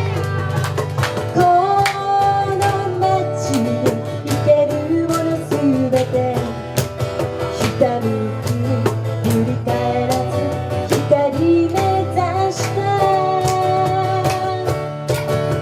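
Live pop-folk song: strummed acoustic guitar and band accompaniment under a sung melody.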